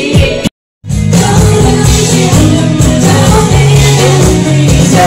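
Karaoke: a woman singing through a microphone over a loud backing track. There is a short gap of silence about half a second in.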